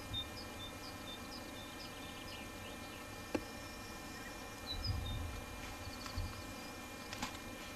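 Small bird calling with a string of short high chirps over a quiet outdoor background, with a single sharp click about three seconds in and a brief low rumble around five seconds.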